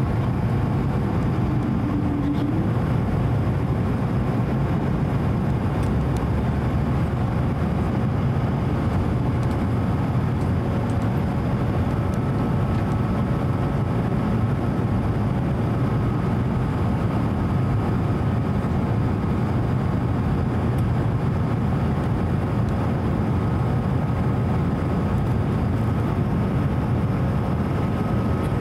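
Steady cabin noise inside an Airbus A220-100 airliner: the Pratt & Whitney PW1500G geared turbofans and airflow make an even rumble and hiss, with a faint steady hum and a fainter higher whine joining about twelve seconds in.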